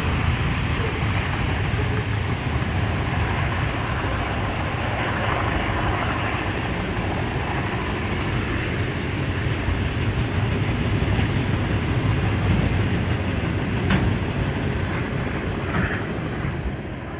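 Freight train's container wagons rolling along the rails with a steady low rumble, starting to fade near the end as the last wagons pass, with one brief click about 14 seconds in.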